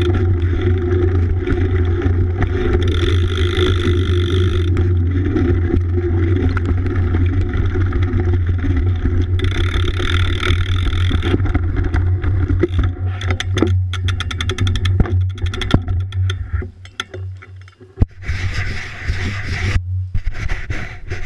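BMX bike rolling over wet pavement, heard through a frame-mounted GoPro Hero 3's housing: a steady low rumble of tyres and wind. About two-thirds of the way in comes a run of rapid clicking and rattling, the sound drops briefly with a single sharp knock, then the rolling rumble returns.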